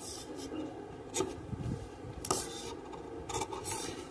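Cotton kurti fabric rubbing and rustling against the cutting table as a hand smooths and turns it, in a few short swishes.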